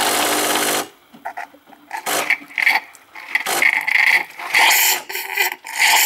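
Nespresso Lattissima+ running its milk-circuit cleaning cycle: the pump buzzes for just under a second, then hot water and steam sputter and hiss out of the milk spout in irregular spurts, growing longer and steadier near the end.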